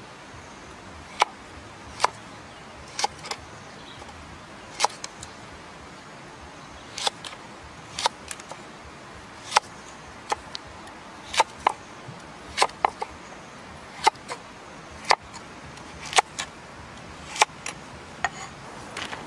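Kitchen knife slicing a raw carrot into strips on a wooden chopping board, each stroke ending in a crisp knock of the blade on the wood. The knocks come irregularly, about once a second and sometimes in quick pairs, over a faint steady hiss.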